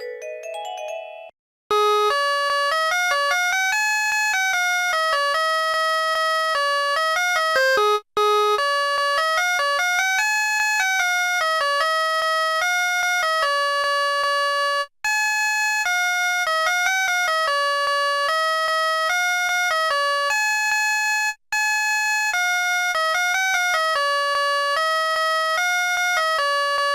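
Built-in ringtone of a Bitsmo VF30 phone (MediaTek MT65xx tone set), played through the phone's speaker: a bright synthesized melody, one note at a time, repeating its phrase about every six seconds with a brief break between repeats. In the first second the previous ringtone ends, followed by a short pause.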